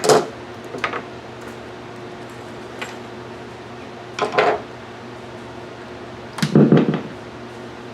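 A few scattered knocks and clicks of handling over a steady electrical hum from a plugged-in guitar amplifier; the loudest knock comes near the end.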